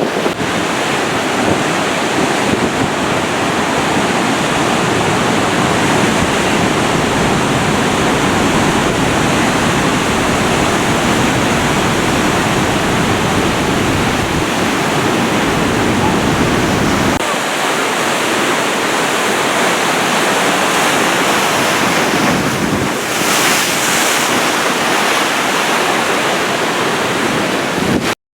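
Rough, storm-driven surf rushing and breaking, with strong wind buffeting the microphone. The sound cuts off suddenly near the end.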